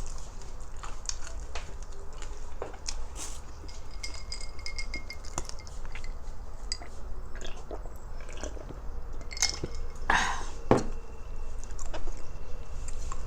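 Crispy fried fatty food being bitten and chewed close to the microphone: a string of sharp crunches and crackles, with a louder crunch about ten seconds in. Now and then a plate or utensil clinks.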